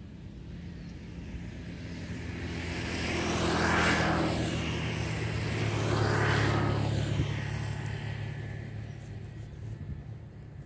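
A passing motor vehicle: engine and road noise swell, peak twice about two and a half seconds apart, then fade away.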